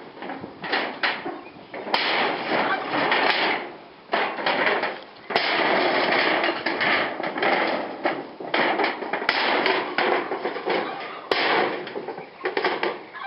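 An old feed shed being crushed: repeated cracking, crunching and banging of the breaking structure, loudest in a long stretch in the middle.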